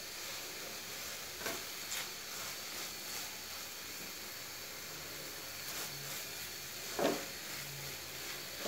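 Grated carrot cooked down with milk and sugar sizzling quietly in a non-stick pan while a spatula stirs it, with a few scraping strokes, the loudest about seven seconds in. The mixture is drying out and turning sticky near the end of its cooking.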